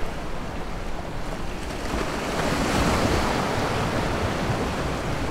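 Surf washing against jetty rocks, one wave swelling up about two seconds in and easing off, with wind buffeting the microphone.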